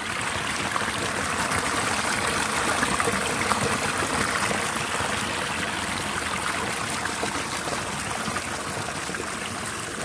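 Small mountain stream running and splashing over rocks in a narrow channel, heard close up: a steady rush of water, a little louder in the first few seconds.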